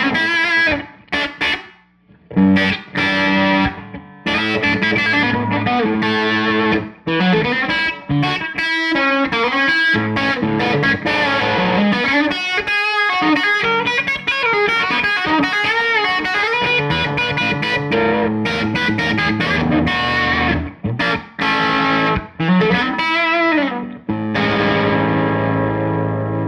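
Electric guitar played through a Tone King Gremlin amplifier on its rhythm channel, with a driven tone: chords and single-note lines with string bends, broken by short muted stops, ending on a held, ringing chord.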